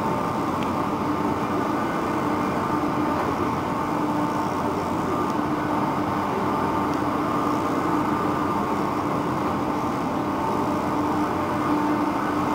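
A passenger ferry's engines and shipboard machinery running steadily close by: a dense, even drone with a few steady hums in it.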